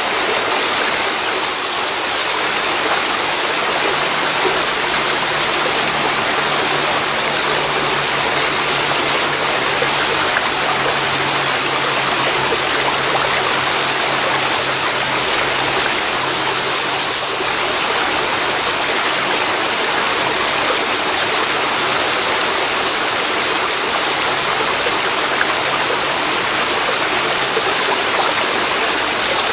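Waterfall pouring into a river: a steady, continuous rush of water. A faint low hum sits underneath for most of it.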